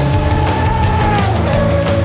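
Loud background music with a heavy, distorted rock or metal sound, a steady drum beat and bass, and a held melody note that steps down about one and a half seconds in.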